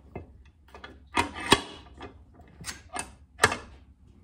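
A handful of sharp metallic clanks and knocks as a freshly bent galvanized steel mounting plate is handled at a cast-iron bench vise. The loudest knocks come about a second and a half in and near the end.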